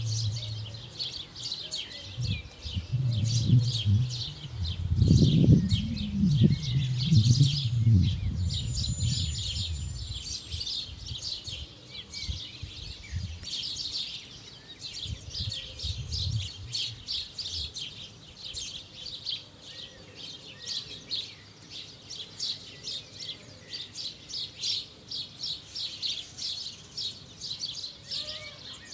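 Small birds chirping and twittering continuously in quick, high short notes. A low rumble runs under them for the first half and fades away.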